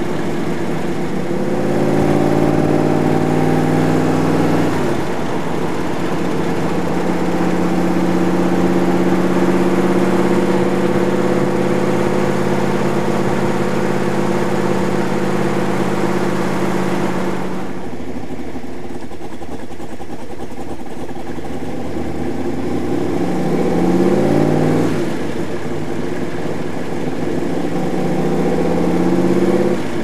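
Roush 427SR V8 of a Superformance MkIII Cobra replica pulling through the gears. The engine note rises, drops sharply at an upshift, then holds at steady cruising revs for about ten seconds. After that it eases off and climbs twice more near the end, each climb cut off by a shift. The engine is heard from the open passenger seat with wind and road noise.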